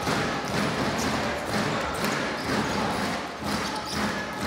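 Arena crowd noise during live basketball play, with a basketball dribbled on the hardwood court, a thud about every half second.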